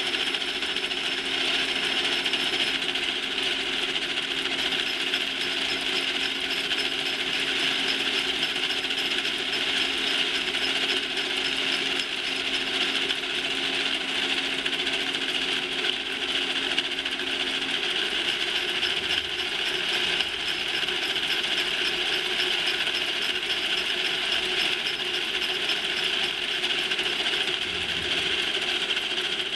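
Factory machinery running: a dense, continuous mechanical clatter and rattle, with a steady hum underneath that stops about 18 seconds in.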